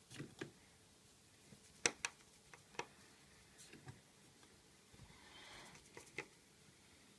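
Precision screwdriver working the tiny screws of an iPhone 5's battery-connector plate: a scattering of faint, sharp metal ticks as the tip seats and turns, with a brief soft rasp a little past halfway.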